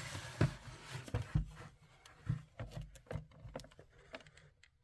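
Light clicks and taps of a hot-staple plastic welder being handled against a plastic tool case while a stitch staple is set into the plastic. There is a soft rustle over the first second or two, then scattered clicks.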